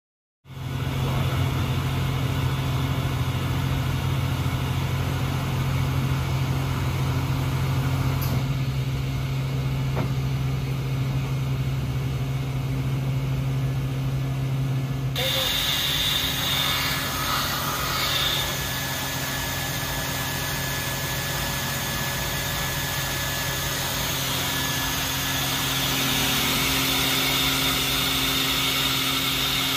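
Mori Seiki MV-40M vertical machining center running, with a steady low hum. About 15 seconds in the sound changes abruptly to a brighter hiss with a thin steady whine.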